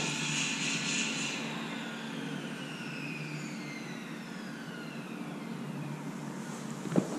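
Tradesmen's power tool, its high whine falling steadily in pitch over about five seconds as it spins down, with a sharp knock near the end.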